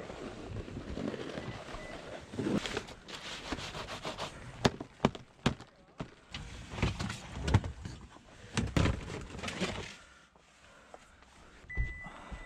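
Boots crunching on packed snow and sharp knocks and thunks of snowboard gear being handled at an open car hatchback, with a short high beep near the end.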